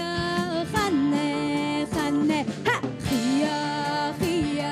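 Folk band music: a clarinet playing an ornamented, sliding melody over guitar accompaniment.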